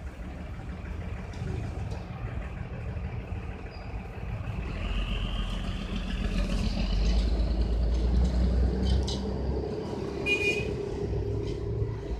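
Road traffic noise: a steady low rumble of vehicles that swells louder from about five seconds in, with a short high tone about ten seconds in.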